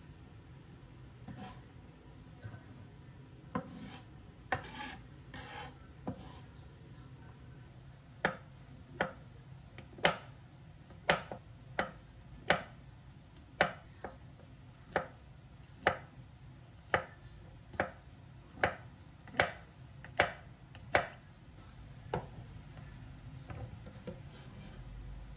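Chef's knife on a wooden cutting board: a few scrapes and rubs on the board at first, then a steady run of sharp chops, a little more than one a second, as brown button mushrooms are sliced, easing off near the end.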